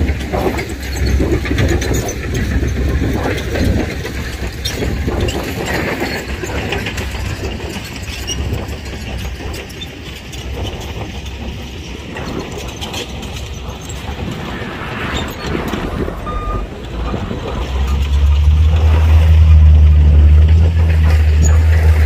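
Heavy diesel earthmoving machinery working, with frequent knocks and clanks over the engine noise. About 18 s in, a diesel engine comes up much louder as a steady, deep hum.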